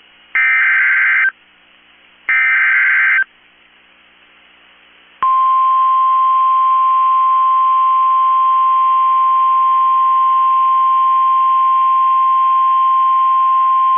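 EAS SAME digital header from NOAA Weather Radio: two harsh, buzzy data bursts of about a second each, a short pause, then, about five seconds in, the steady single-pitch 1050 Hz weather radio alert tone, which holds to the end. The header and tone open a severe thunderstorm watch alert.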